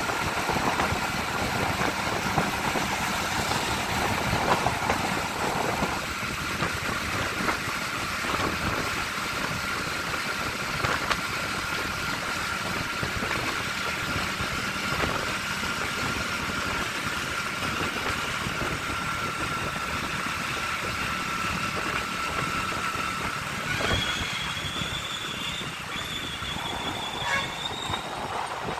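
Hero motorcycle's engine running while being ridden along a road, with steady wind and road noise and a thin steady whine through most of it that stops near the end.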